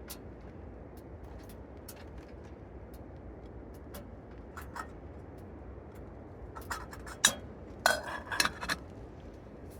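Metal cookware clinking and scraping, a few sharp clinks with a short ring clustered about seven to nine seconds in, over a steady low hiss with scattered faint ticks.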